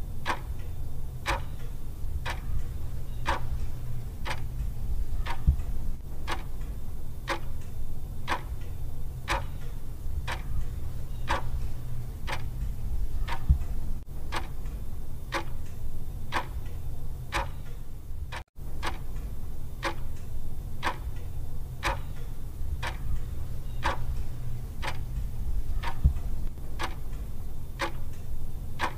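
Clock ticking steadily, roughly one tick every two-thirds of a second, over a low steady hum. The sound cuts out for an instant about two-thirds of the way through.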